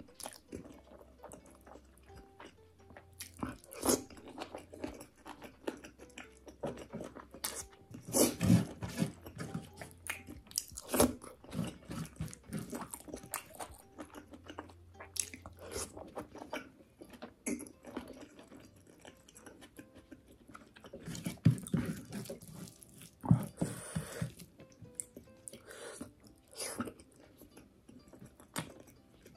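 Close-miked mouth sounds of a person eating rice and chicken curry by hand: irregular chewing and biting with wet smacks, louder in several short clusters.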